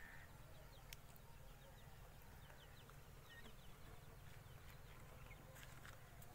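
Near silence with a low outdoor rumble, a single click about a second in, and faint birds chirping in quick short notes from about two seconds in to past the middle.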